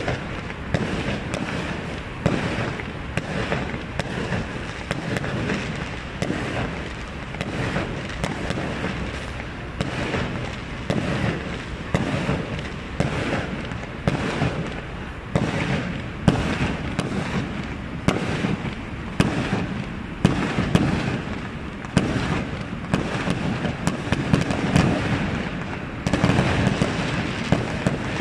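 Many fireworks going off at once, a dense and continuous barrage of overlapping bangs and crackles, several a second, with no let-up.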